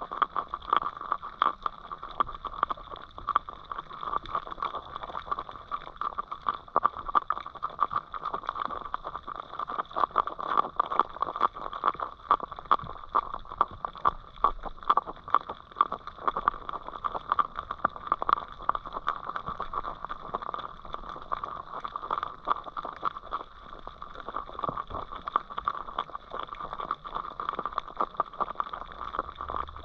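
Underwater sound picked up by a submerged camera: a steady hum with dense, irregular crackling and clicking throughout.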